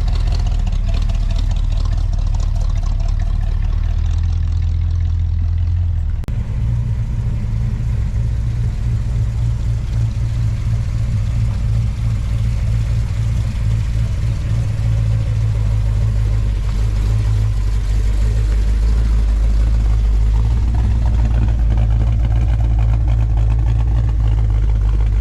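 Car engine running at low speed, with a steady low note that shifts about six seconds in.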